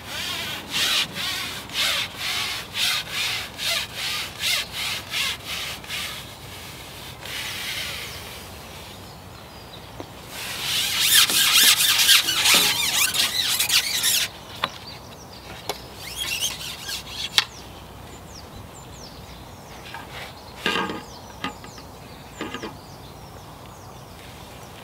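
A long fishing pole being slid out hand over hand, giving regular rubbing strokes about two a second, then a longer, louder stretch of harsh rubbing a few seconds later.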